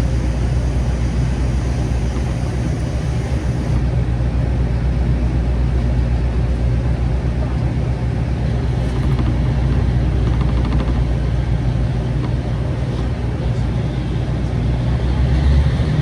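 JR Shikoku KiHa 40/47 series diesel railcar heard from inside while running: a steady low drone from its diesel engine under the running noise of the train.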